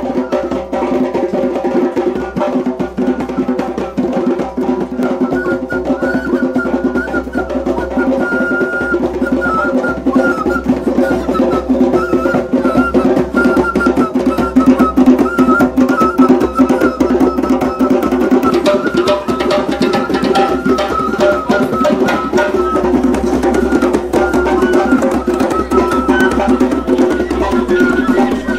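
Jonkanoo fife-and-drum music: a bamboo fife playing a wavering melody over steady, busy hand-drum rhythm.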